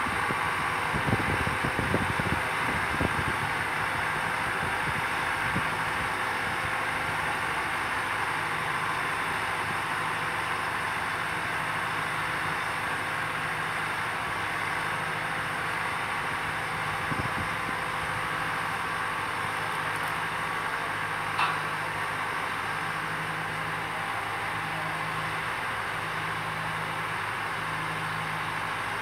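Boat travel lift's engine running steadily as it lowers a fishing boat into the water, with a low hum that starts to pulse slowly in the last few seconds. A few knocks early on and a single sharp click about two-thirds of the way through.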